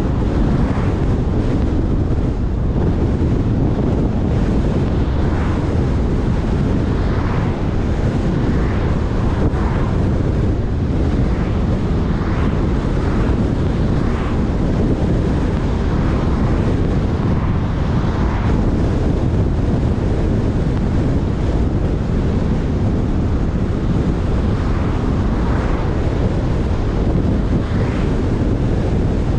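Steady wind buffeting on the microphone over the low rumble of a car driving at road speed, with faint swells every second or two.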